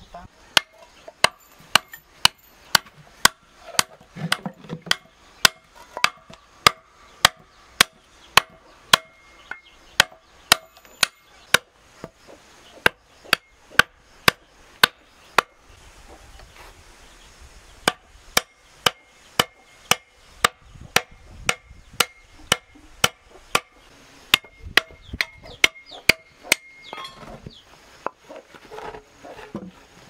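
Hand hammer blows on a wooden log being worked into a bee hive, about two strikes a second, each with a short ring. The blows come in runs with brief pauses a third of the way in, around the middle, and near the end.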